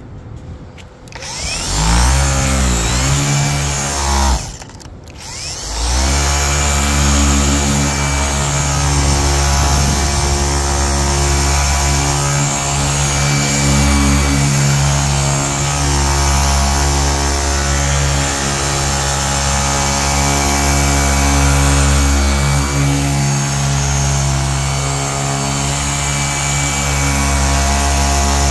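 Electric polisher with a wool pad buffing an oxidized plastic headlight lens. The motor spins up about a second in, winds down briefly around four seconds, then starts again and runs steadily.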